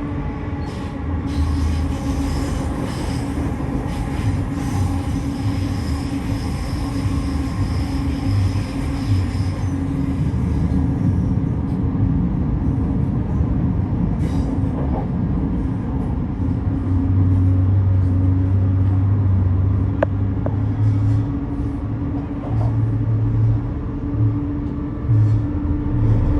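Brisbane electric suburban train running, a steady hum over a low rumble, with a faint high squeal for the first ten seconds or so and scattered clicks.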